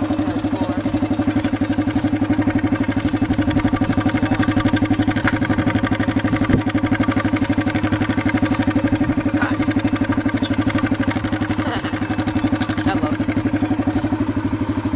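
A four-wheeler (ATV) engine idling steadily through a newly fitted muffler, with a fast, even exhaust pulse.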